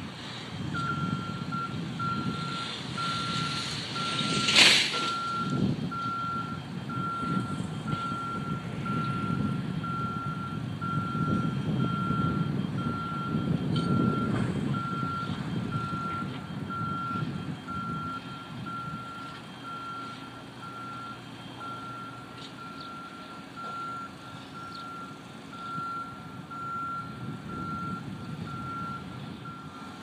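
A vehicle's backup alarm beeping steadily over a heavy machinery engine rumble. A brief, loud, sharp noise cuts through about four and a half seconds in.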